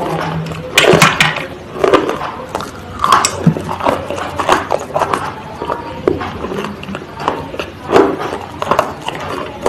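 Something hard and crunchy being bitten and chewed close to the microphone, a sharp crunch roughly every second.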